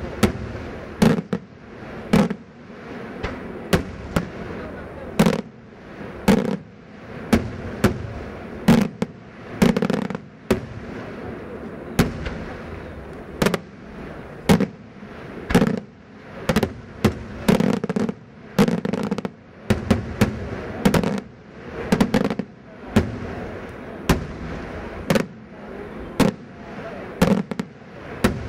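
Daytime fireworks: aerial shells bursting overhead in an irregular run of sharp bangs, one or two a second, with a continuous rumble between them.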